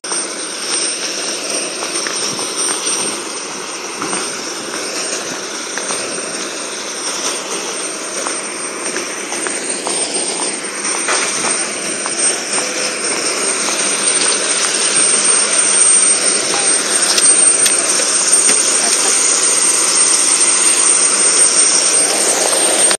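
Jet airliner engines running: a steady roar with a constant high-pitched whine, growing louder over the second half and cutting off abruptly at the end.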